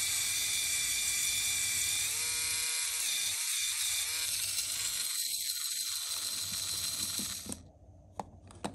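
LEGO Technic electric motor running with a steady whine as it drives a chain-link slip clutch, the output gear gripped by hand. The pitch shifts about two seconds in and the sound dips twice; the motor stops about seven and a half seconds in, followed by a couple of light clicks.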